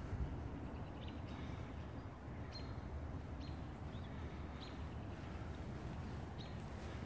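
Outdoor ambience: a bird chirping repeatedly in short high notes, roughly once a second, over a steady low rumble.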